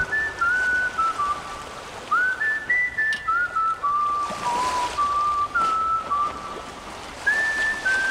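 A whistled melody, part of the end-credits music: single clear notes stepping up and down, several sliding up into the pitch.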